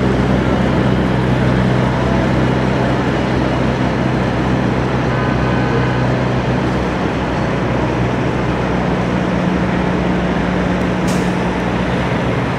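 Peterbilt 379 semi truck's diesel engine running steadily as it pulls a lowboy trailer slowly away, with a brief hiss about eleven seconds in.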